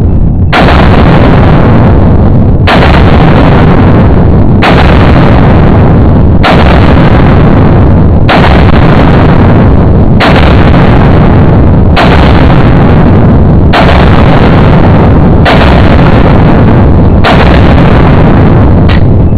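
Gunshots from a compensated Glock 17L pistol, slowed down into long, deep booms that run into one another. A fresh shot comes about every two seconds, eleven in all.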